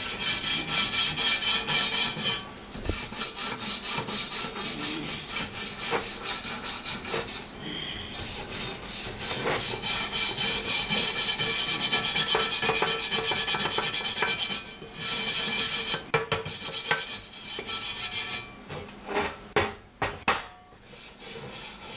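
Power grinder working steel: a harsh, rasping grind with a steady whine through it, broken by a few short pauses and a choppy stop-start stretch near the end.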